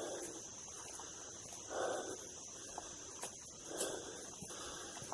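Steady high-pitched drone of insects in the woods, with a soft rushing swell about every two seconds.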